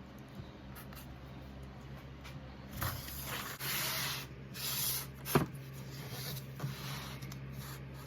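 Wood being handled: a few short rubbing, scraping sounds, then one sharp knock a little past halfway, over a steady low hum.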